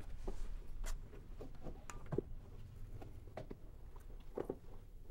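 Soft clicks, taps and rustles of small objects being handled on a wooden shelf, with a few sharper knocks scattered through.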